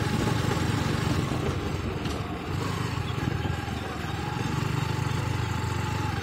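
Steady engine and road noise of a moving vehicle, a low rumble with a constant hiss over it.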